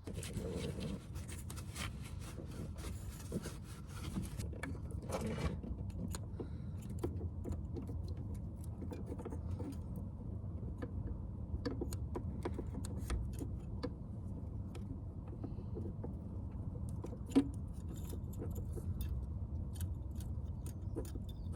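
Scattered light metallic clicks and clinks of hand tools and metal fittings while a diesel fuel pump's suction control valve is pressed in and fastened, over a steady low rumble. A hissing noise fills the first few seconds.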